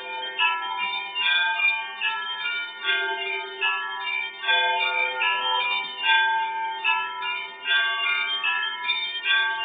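Russian Orthodox monastery church bells ringing: several bells of different pitches struck in quick, irregular succession, their tones overlapping over a steady lower hum.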